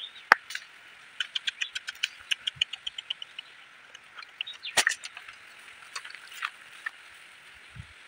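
Light clicks and taps of bamboo sticks being handled and set into a small stick trap, with a fast even run of about seven clicks a second starting about a second in and a sharper cluster of clicks in the middle, over a steady high hiss.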